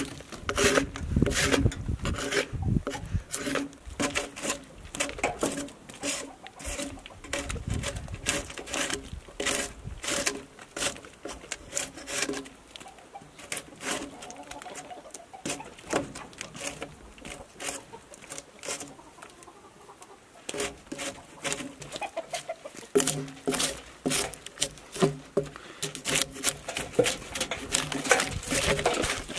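Drawknife peeling bark off a log: a rapid, irregular series of short scraping strokes of the blade along the wood. Chickens cluck in the background.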